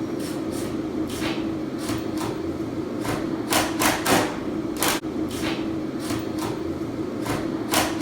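Hammer tapping at an irregular pace, lightly at first and with a few harder blows about halfway through, tacking a replacement window in place so it holds without being tightened. A steady low hum runs underneath.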